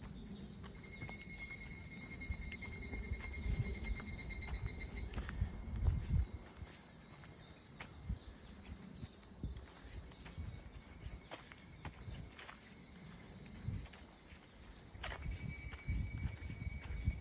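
A steady, high-pitched chorus of insects, with footsteps thudding on a trail underneath. A pulsed trill comes in twice, about a second in and again near the end.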